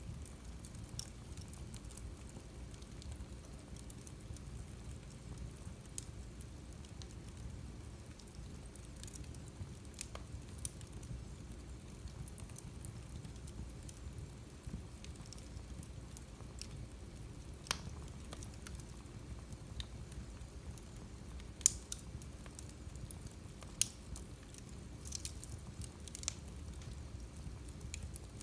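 Wood fire crackling in a fireplace: a steady low rumble of burning with scattered sharp pops and snaps, a few louder ones past the middle.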